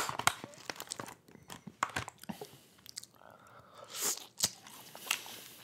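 A person chewing a mouthful of cheese-topped dimsum, with many irregular soft wet mouth clicks and smacks.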